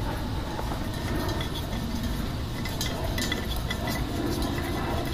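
Faint light metallic clicks and scrapes from handling the brass adapter fitting on a 1-pound disposable propane cylinder as it is worked loose, over a steady low rumble.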